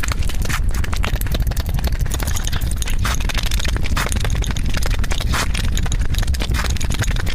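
Close-miked eating sounds of someone chewing eggs: many quick, irregular wet clicks and smacks over a steady low rumble.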